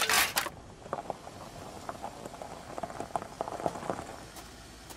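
A short metallic clank as a suit of armour's visor shuts, followed by faint, irregular footsteps crunching on gravel.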